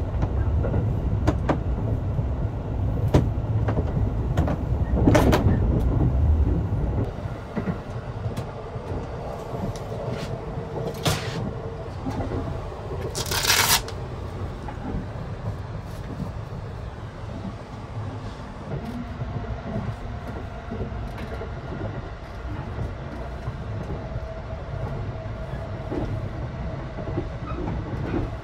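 Cassiopeia sleeper car running on the rails, heard inside the compartment as a steady low rumble and rattle, louder in the first six seconds and then settling. Scattered knocks and a short hiss about halfway through are heard over it.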